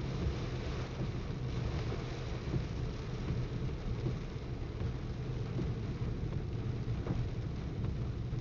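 Steady low rumble of a car driving on a rain-soaked road, heard from inside the cabin, with heavy rain hissing and pattering on the vehicle.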